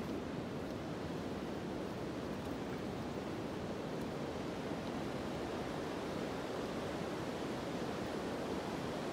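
Steady rushing of a glacial mountain river running full after rain.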